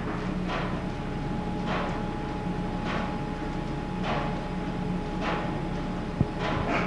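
Machine-shop machinery running: a steady hum with a rhythmic swishing stroke about every 1.2 seconds, and one sharp click near the end.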